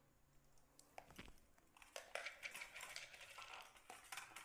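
Peeled boiled eggs rolled by hand in a stainless-steel bowl, faintly clicking and scraping against the metal as they are coated with turmeric, mostly from about two seconds in.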